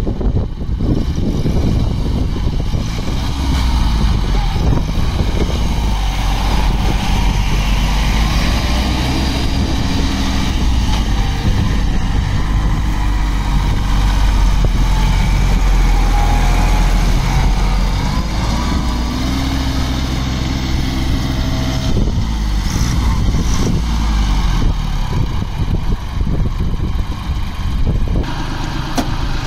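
Mitsubishi GS21 compact tractor's diesel engine running as the tractor is driven around, its pitch rising and falling gently as the speed changes.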